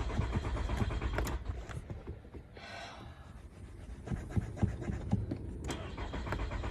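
Car engine being turned over by its starter without catching, a quick even rhythm of cranking beats. The cranking stops about a second in and starts again about four seconds in: a hard start, the engine not firing.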